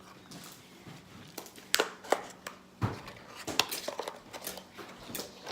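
Small containers and bottles being handled on a tabletop: a run of scattered short knocks, clicks and clinks.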